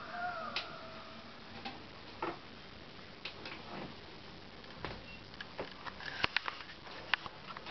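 Domestic cat's short meow that rises and falls, ending about a second in. Scattered sharp clicks and taps follow, coming in a quick run about six seconds in.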